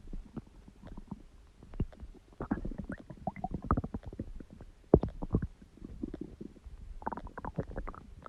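Human stomach gurgling and rumbling: irregular bubbly gurgles and crackling pops, with a sharp pop about five seconds in and a cluster of gurgles near the end.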